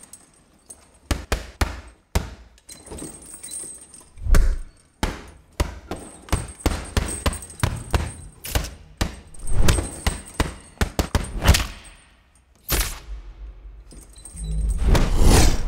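Post-produced sound effects for a boxing fight, with no crowd or voices: a quick run of punch impacts and thuds with jangly, rattly detail, then two falling whooshes and a heavy low hit near the end.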